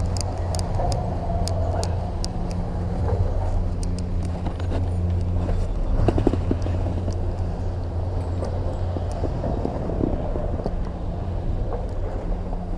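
Snowboard running over packed snow: a steady scraping rumble from the board's base and edges, with small ice ticks and a louder scrape about six seconds in.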